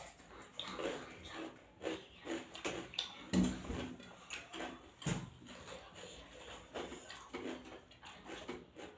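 Close eating sounds: chewing and lip-smacking with a full mouth, with fingers scooping rice and curry on a steel plate, in a string of short irregular clicks and smacks, two of them louder about a third and halfway through.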